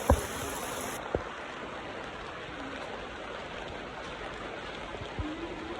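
Steady heavy rain falling, a continuous even hiss, with a sharp knock just after the start and another about a second in.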